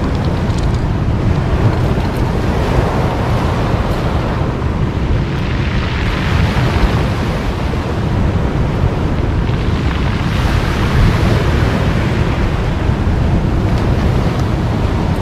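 Ocean surf washing in on a pebble beach, with wind buffeting the microphone as a steady low rumble. The wash of the waves swells up twice, about five seconds in and again about ten seconds in.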